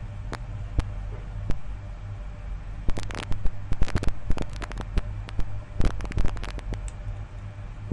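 Alligator-clip test leads and cables being handled against a phone's plastic back and battery contacts: scattered clicks and taps, bunched about three, four and six seconds in, over a steady low hum.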